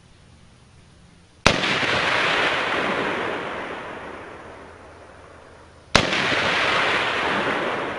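Two AR-15 rifle shots about four and a half seconds apart, fired while zeroing the sights. Each crack is followed by a long rush of noise that fades away over about three seconds.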